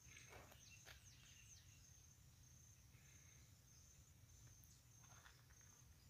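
Near silence: a faint, steady, high insect trill, with a few faint rustles.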